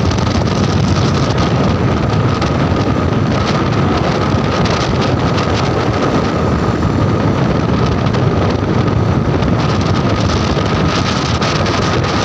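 Motorcycle riding at steady speed: the engine runs on under heavy wind buffeting on the microphone, with a faint steady whine.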